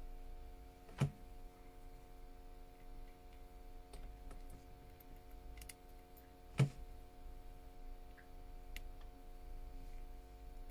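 Two sharp clicks of small tools or parts being handled against a hard work surface, about five and a half seconds apart, with a few faint ticks between them over a steady electrical hum.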